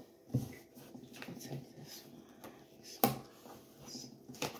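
A deck of tarot cards being handled and shuffled softly, with one sharp snap of the cards about three seconds in.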